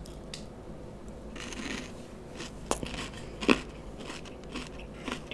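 Close-miked chewing of a Ferrero Raffaello coconut sweet, soft crunching with two sharper crunches about three and three and a half seconds in.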